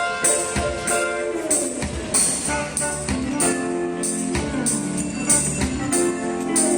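Music: held instrument notes over a steady beat, with a bright high hit a little under twice a second.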